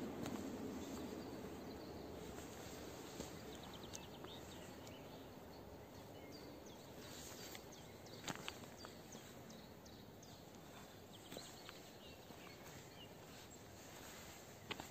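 Quiet outdoor ambience: a low rumble dies away over the first couple of seconds, then faint bird chirps and a few scattered small clicks over a soft background hiss.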